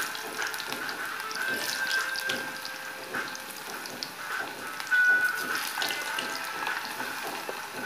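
Potato wedges sizzling and crackling as they fry in hot oil in a pan. The sound is briefly louder about five seconds in.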